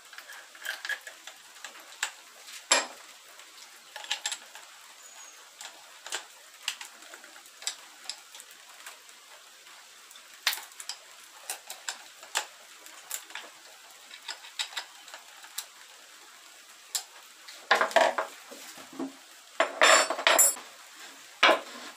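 Small metallic clicks and clinks as a flap disc and its clamping washer are fitted and tightened onto an angle grinder by hand. Near the end comes a louder clatter in two short bursts as the grinder is handled and set down on the wooden workbench.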